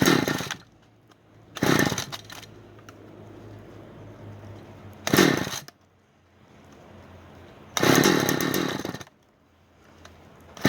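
Two-stroke chainsaw being pull-started while cold: four short loud bursts a second or more apart, the fourth lasting over a second, without the engine settling into a steady run.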